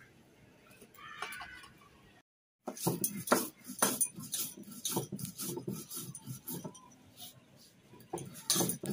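Cumin seeds being ground by hand on a stone grinding slab: the rounded grinding stone scrapes and knocks against the slab in quick, uneven strokes. The grinding starts after a short, faint start.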